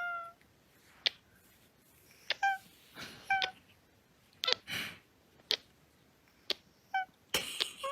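A cat making short chirping meows, mixed with sharp clicks and taps at irregular intervals, with a couple of short breathy puffs in between.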